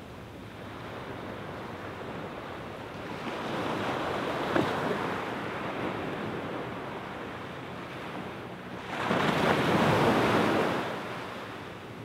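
Small waves breaking and washing up onto a sandy beach: one swell of surf about three seconds in with a brief sharp crack, and a louder wash about nine seconds in.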